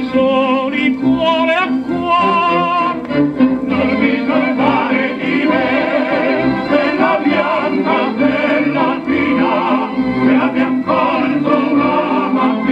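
An old Italian song record playing through an RCA Victor Orthophonic High Fidelity SHF-7 record player. This stretch has no sung words: the music goes on without a break, carried by sustained wavering melodic lines.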